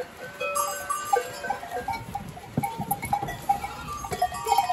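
A crowded pen of goats jostling and shuffling as they are caught for milking: irregular knocks and scuffs with many short ringing clinks.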